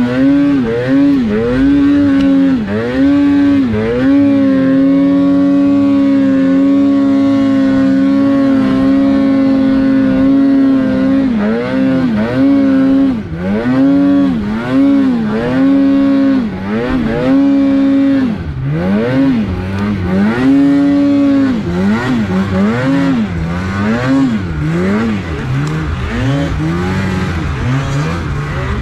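Polaris RMK snowmobile's two-stroke engine revving hard under load in deep powder, held at high revs for several seconds at a stretch and elsewhere blipped on and off in quick rises and falls.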